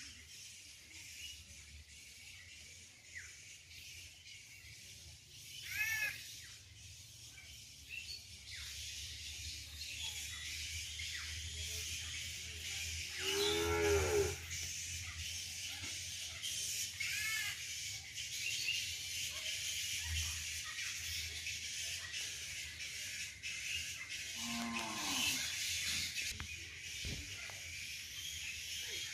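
Cows mooing: one long moo about halfway through, the loudest sound, and a shorter one later, over a steady high hiss.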